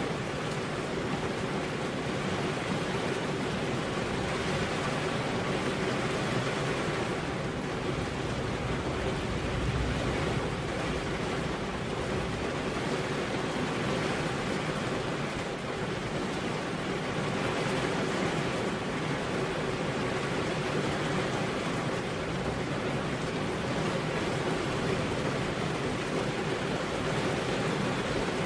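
Heavy rain falling steadily on a road: a dense, even hiss with no thunder and no separate drops or events standing out.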